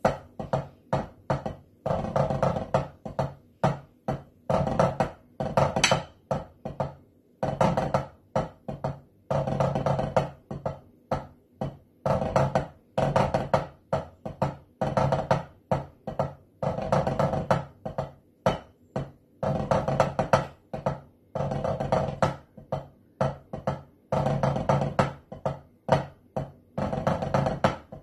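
Drumsticks played on a snare drum practice pad: pipe-band snare drumming, with phrases of rapid strokes and rolls broken by short gaps.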